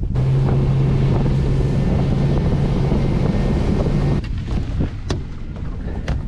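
Boat engine running at a steady speed with a low, even hum under heavy wind buffeting on the microphone; about four seconds in the engine hum drops away, leaving wind noise and a few knocks.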